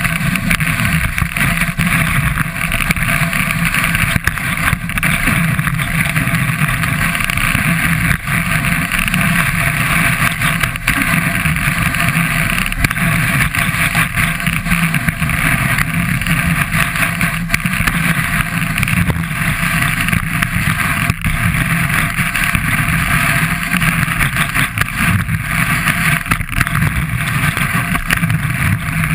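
Skis running and carving over groomed snow, heard from a camera mounted on the ski: a loud, continuous rushing hiss and rumble, with many small clicks and knocks from the snow surface.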